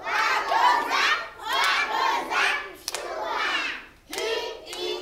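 A group of young children's voices calling out together in short rhythmic phrases about a second apart, with hand claps.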